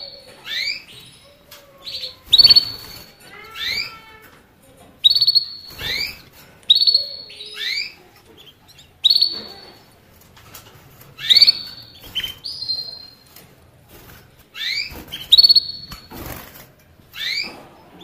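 A small songbird calling over and over: a short clear note and quick downward-sliding chirps, repeated every one to two seconds, with short rustling bursts between the calls.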